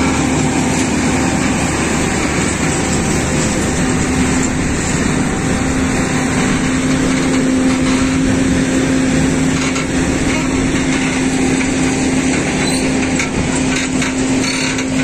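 Heavy truck engine running steadily with road noise and a constant hum, and a few light rattles near the end.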